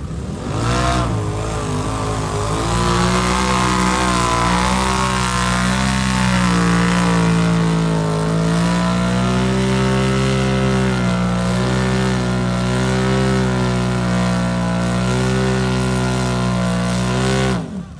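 ATV engine held at high revs for a long pull through a mud bog hole, its pitch steady apart from a slight dip midway, then dropping off sharply near the end as the throttle is let off.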